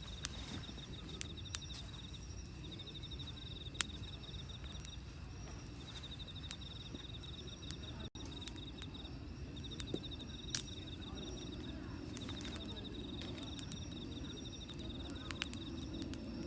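An insect trilling with a high, fast pulsing, in repeated bursts of one to two seconds with short gaps. Scattered sharp clicks and a low steady outdoor hum sit underneath.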